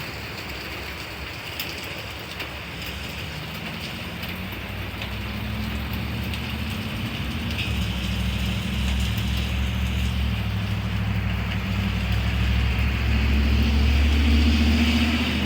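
Steady rain with a low, humming rumble that builds louder over the last several seconds.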